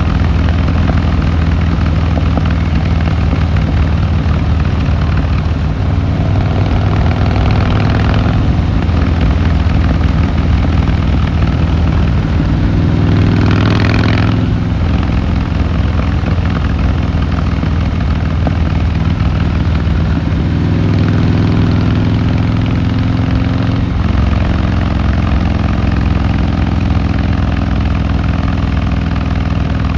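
Harley-Davidson Fat Boy Lo's air-cooled V-twin engine running steadily under way. A brief rushing noise swells about 13 seconds in, and the engine note rises for a moment about 21 seconds in as it pulls harder.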